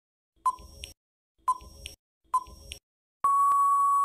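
Countdown timer sound effect: a short beep about once a second, three times, then a long steady beep at the same pitch near the end, signalling time out.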